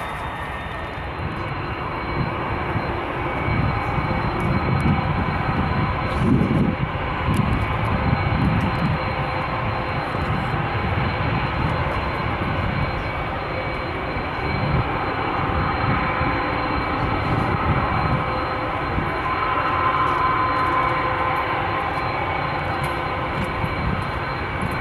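Airbus A320-214's CFM56-5B jet engines during touchdown and rollout on the runway. A deep rumble builds a couple of seconds in and is loudest for several seconds, then eases into a steady engine whine as the jet rolls past.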